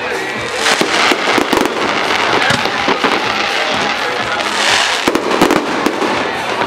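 Aerial fireworks display going off: a dense, continuous string of bangs and crackling from shells bursting overhead.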